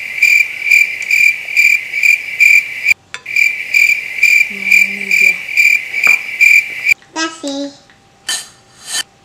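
Cricket chirping sound effect: a loud, even high chirp repeating about twice a second, broken briefly about three seconds in and cutting off abruptly about seven seconds in. A few short, pitched sounds follow near the end.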